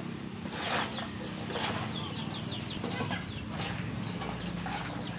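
Birds chirping again and again in short falling notes, with a run of five high peeps about a second in, over the scrape of a rake dragging loose oil palm fruitlets across bare ground.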